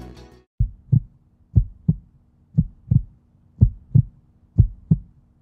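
A heartbeat sound effect: paired low thumps, lub-dub, about once a second over a faint steady hum. It starts just after a music track cuts off in the first half second.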